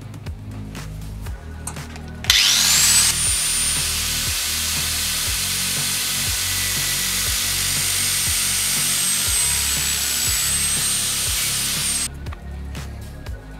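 Electric angle grinder starting up with a quickly rising whine about two seconds in, then running at a steady high pitch while its disc grinds at the tip of a steel spark plug; it cuts off near the end.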